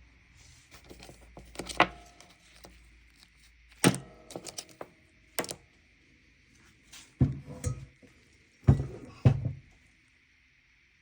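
Irregular knocks and clunks of hard objects handled in a workshop, in short clusters over a faint steady high hum.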